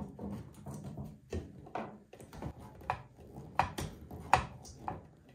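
Irregular light clicks and taps of a screwdriver and screw against the metal selection door of a vintage Coke vending machine while a screw is being started, with the loudest knock about four seconds in.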